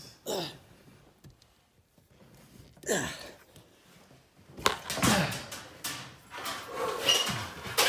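Electrical cable dragged through wood framing and insulation: two short squeaks that fall in pitch in the first few seconds, then continuous scraping and rustling from about halfway through.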